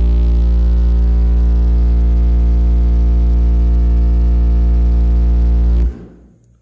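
Toro Tech Force 8 subwoofer playing a single steady, very loud deep bass test tone during a peak-power SPL run at about 1600 watts. It reaches 148.33 dB and cuts off suddenly about six seconds in.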